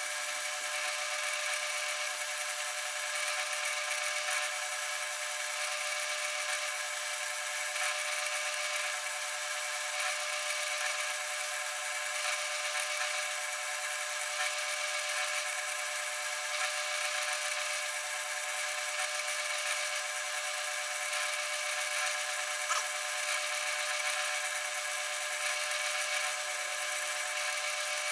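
South Bend Model A metal lathe running under power with a steady whine, turning down a step on a T-nut blank.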